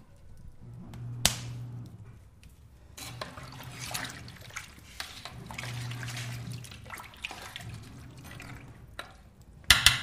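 Kitchen sink water running and dripping, with a sharp click about a second in and a loud double clack near the end.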